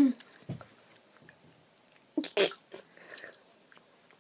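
A girl's short, stifled vocal sounds: a muffled voiced burst behind her hand at the start, then a few quick breathy bursts about two seconds in, like suppressed giggles.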